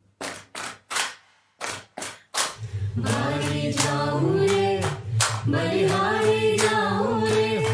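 About six slow hand claps, then a group of voices begins singing a devotional song together about two and a half seconds in, with claps still keeping time under the singing.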